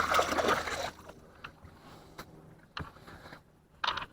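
Water sloshing beside a small fishing boat for about the first second, then quiet with a few light knocks on the boat.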